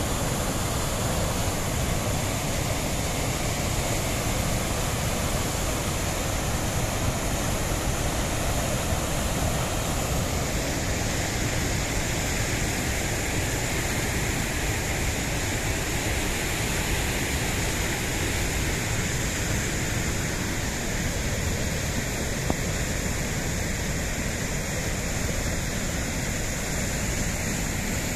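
Muddy floodwater rushing and pouring as one steady, unbroken noise, with a higher hiss joining in about ten seconds in.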